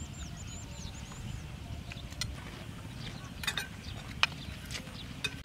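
Outdoor ambience: a steady low rumble, a bird chirping a quick series of high notes in the first second or so, then a few sharp clicks, the loudest about four seconds in.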